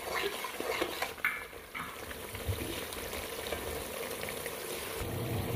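Cow's-milk cream sizzling in a pot as it cooks down into desi ghee, the butterfat separating out, with a spoon stirring and scraping the pot a few times in the first couple of seconds.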